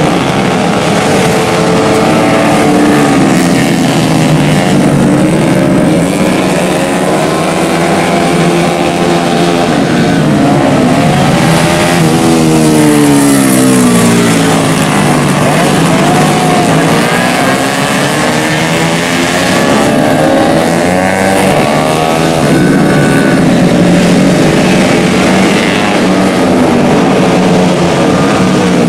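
Yamaha F1ZR single-cylinder two-stroke racing engines revving hard, the pitch rising and falling over and over as bikes accelerate, shift and pass, with several engines overlapping at times.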